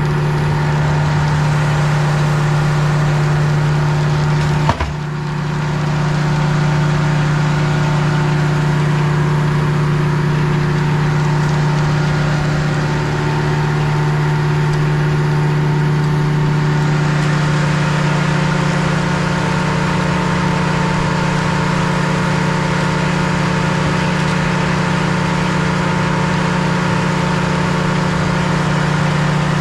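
Sawmill engine running steadily. About five seconds in there is one sharp knock, after which the level briefly drops and then recovers.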